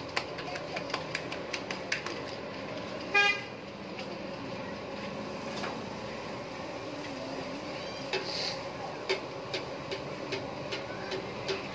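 A vehicle horn toots once, briefly, about three seconds in. It is the loudest sound, over steady street background noise with scattered clicks and knocks.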